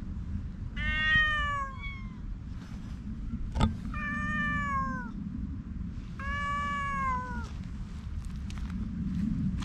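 A cat meowing three times. Each meow is long and slides slightly down in pitch. There is a single sharp click between the first and second meow.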